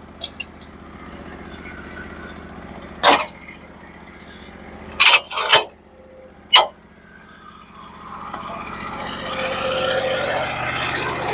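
Norwood HD36v2 portable bandsaw mill's engine running steadily at low speed, with four sharp knocks in the middle. From about eight seconds in, a broad rushing noise builds and grows louder as the mill is throttled up and the band blade goes into the log.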